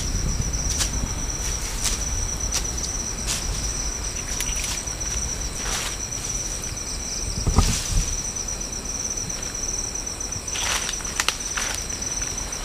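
Night insects chirring in one steady high tone, with scattered footsteps and rustling in dry leaf litter and one louder thump just past halfway.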